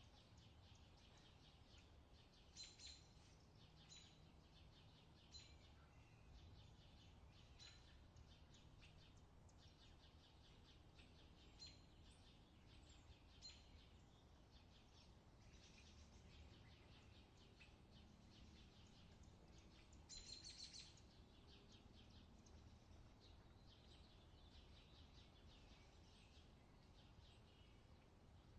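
Faint outdoor summer ambience: a low, steady background rumble with short bird chirps every few seconds, and a longer run of chirps about twenty seconds in.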